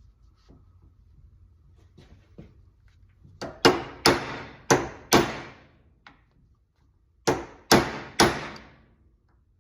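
Hammer strikes on a punch driving the worn hinge pin out of a 1966 Chevrolet C10 door hinge held in a vise: a few light taps, then five sharp ringing metal blows, a pause of about two seconds, and three more blows. The pin is moving out under the blows.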